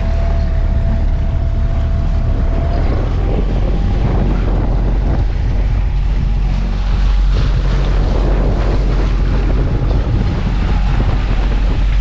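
Boat engine running steadily while under way, with heavy wind noise buffeting the microphone.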